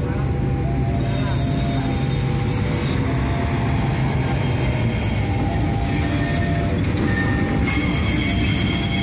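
Sancaka passenger carriages rolling slowly along the rails while being shunted, with a steady low rumble from the wheels and faint squealing tones. High-pitched squealing grows stronger near the end.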